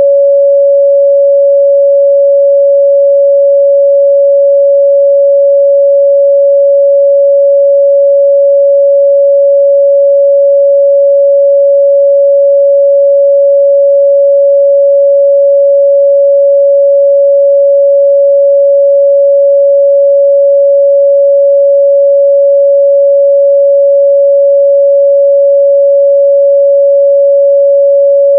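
A pure 561 Hz sine-wave test tone, held steady and loud at one pitch with nothing else in it.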